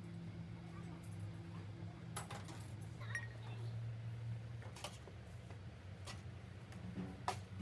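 Metal parts clinking and clattering as they are handled, a handful of sharp clinks over a low steady hum.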